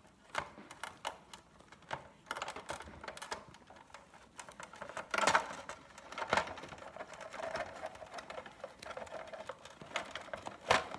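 Hands stretching the rubber skin of a Big Mouth Billy Bass singing fish and handling its plastic body: irregular clicks, knocks and rubbing, with the loudest knocks about five and six and a half seconds in.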